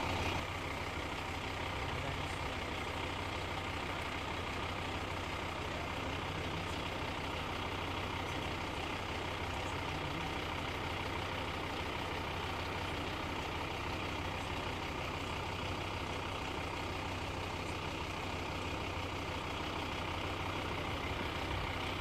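Fire engine idling, a steady, unchanging engine hum.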